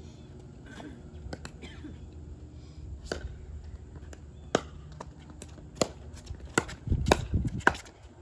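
Pickleball paddles striking a hard plastic ball in a rally, each hit a sharp pock. The hits come about every second or so at first, then quicken to about two a second near the end as the players dink at the net.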